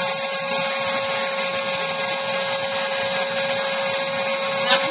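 Airbrush spray-tan machine running steadily, its motor humming with a hiss of air as the tanning solution is sprayed.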